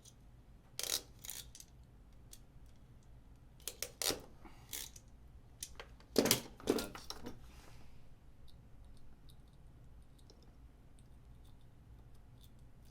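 Hand crimping tool clicking and squeezing as it crimps a heat-shrinkable butt splice onto a trolling motor lead, in a handful of sharp metal clicks, loudest about a second in and again around six seconds.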